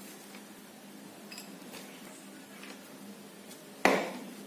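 Faint scraping of a Gillette Venus razor drawn over cream-covered skin, with one sharp knock just before the end that dies away over about half a second.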